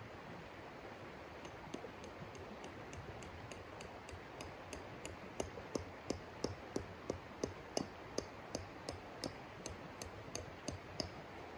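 Sharp, evenly spaced taps, about three a second, faint at first and louder in the second half, from a tent stake being hammered into frozen ground. The steady rush of a shallow river runs underneath.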